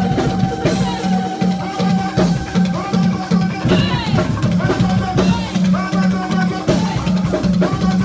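Live band music with a steady drum beat, about two beats a second, and a man singing lead into a microphone; a long held note runs through the first half.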